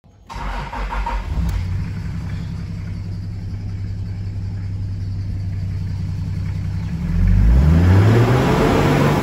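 Turbo-converted Toyota 1HZ straight-six diesel running steadily at idle, heard from inside the cab, then revved about seven seconds in, rising in pitch and loudness before dropping back.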